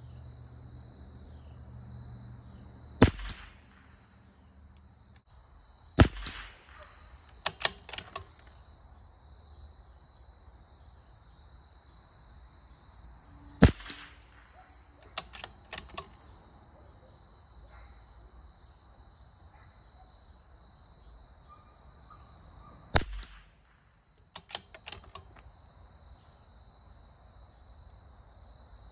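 CZ 457 Varmint .22 LR bolt-action rifle fired four times at irregular intervals, each shot a sharp crack, with light metallic clicks of the bolt being cycled between shots.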